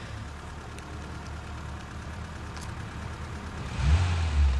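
Taxi's car engine idling with a low steady hum, then revving louder about four seconds in.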